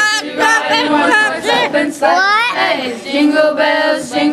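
Several voices singing together, loose and overlapping, with a sweeping upward note about two seconds in.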